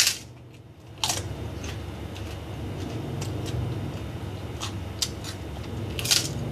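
A crisp kerupuk (fried cracker) crunching between the teeth as it is bitten and chewed: loud crunches at the start and about a second in, fainter crunching of chewing in between, and another loud bite near the end.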